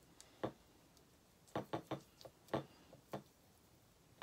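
Paintbrush clicking and tapping against a small ceramic palette dish as paint is mixed: a series of short, sharp, irregular clicks.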